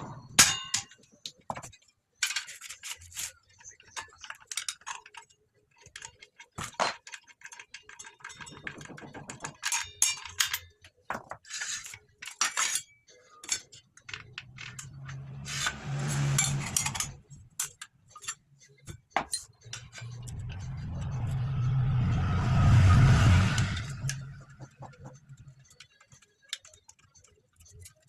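Makita 5007N circular saw being handled, with a run of sharp metallic clicks and clinks, then two stretches of a low humming running sound. The second, longer one swells and then dies away.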